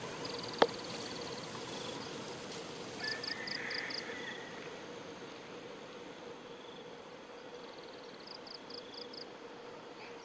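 Rural outdoor ambience of calling animals: a steady hum with runs of five quick, high chirps about three seconds in and again near the end, and a single sharp click just after the start.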